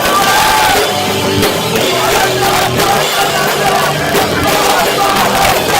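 Live band playing loud rock music, recorded on a cheap phone microphone so the sound is harsh and overloaded.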